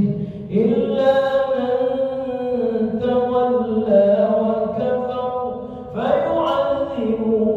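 An imam's male voice chanting Quran recitation in long, melodic, drawn-out phrases. He takes a short pause about half a second in and another just before six seconds, then starts a new phrase.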